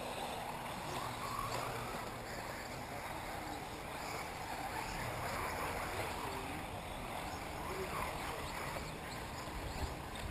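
Electric 1/8-scale RC buggies running around a dirt track, a steady whirring haze with faint voices mixed in.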